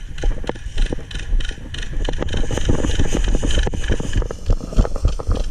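Wind and handling noise buffeting a body-worn camera microphone, a low rumble, with irregular clicks and knocks from the wearer's gear.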